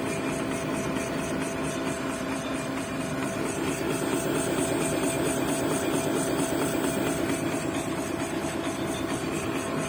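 Machinery running steadily with a constant low hum and a faint, fast, regular ticking over it.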